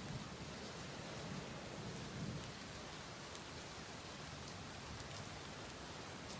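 Steady rainfall with scattered drops ticking sharply, over a low rumble that swells about two seconds in.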